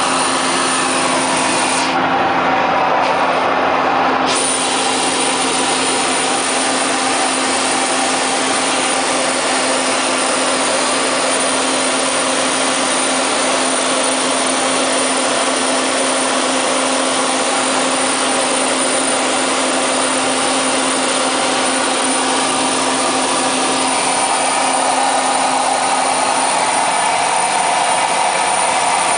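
Cabin noise of a Cessna 208B Caravan in level cruise: the single turboprop engine and propeller running steadily, a constant hum under a broad, even rush of engine and air noise.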